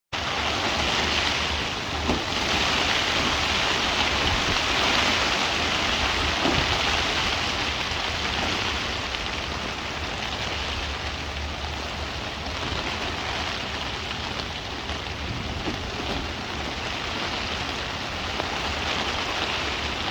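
Gusty 40–60 mph wind from Hurricane Helene, a steady rushing hiss that is louder through the first half and eases a little after, with a couple of faint knocks.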